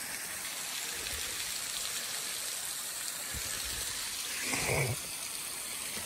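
Small waterfall trickling and splashing over sandstone ledges, a steady, even rush of water. A few faint low thumps run under it, and a brief louder sound comes about three-quarters of the way through.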